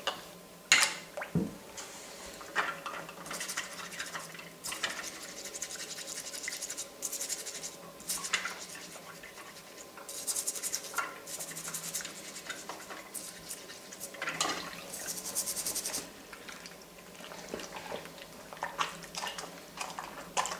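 A toothbrush scrubbing the hard plastic parts of a vintage Action Man figure in soapy water in a sink. It comes in several bursts of quick back-and-forth strokes, with a few light knocks of parts against the sink.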